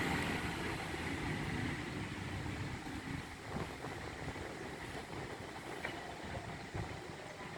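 Steady rushing, rumbling noise of a river running high after heavy rain, slowly fading.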